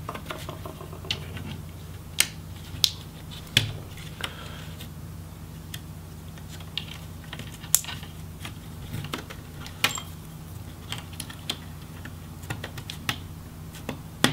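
Irregular small clicks and taps as fingers and a thin pry tool work at a laptop's DC power jack and the plastic case around it, wiggling the jack loose.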